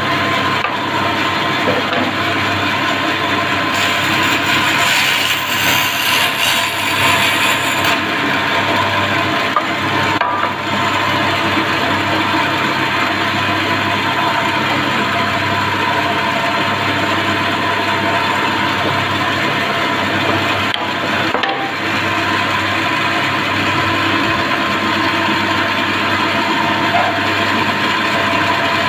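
Bandsaw running steadily with a constant hum. About four seconds in, its blade cuts through a wooden board for about four seconds, adding a bright rasping hiss over the motor.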